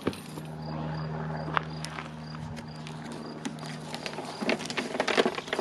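Blue painter's tape being peeled off the freshly enamelled rim of a cast iron sink: a dense crackling rip that starts about four seconds in, over a steady low hum.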